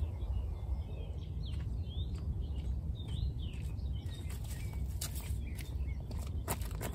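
Small birds chirping and calling, short rising and falling chirps throughout, over a steady low rumble. A few sharp clicks stand out, the loudest just before the end.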